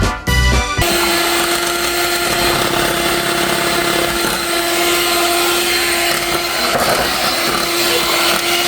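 Electric mixer running steadily through cake batter, a constant motor hum with a whirring noise; it starts about a second in, after a snatch of music.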